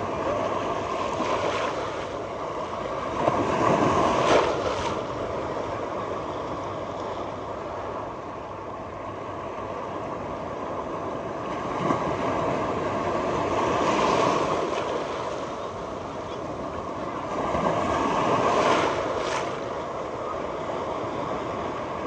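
Waves washing onto a beach, the surf noise rising and falling every several seconds, with a steady faint hum underneath.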